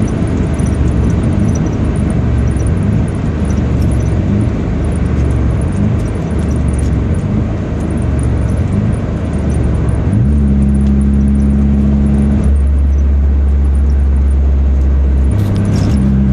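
Mazda RX-7 rotary engine's exhaust heard inside the cabin with the windows up, through a cat-delete pipe split into twin MagnaFlow 10444 mufflers. For about ten seconds it is a rough, uneven rumble. Then it settles into a steady drone that steps in pitch a couple of times near the end.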